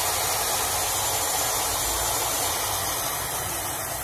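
Shindaiwa LA66 180 mm cut-off saw running free with no cut: its 1150 W brushed motor and alloy blade spinning at speed in a steady hissing whir.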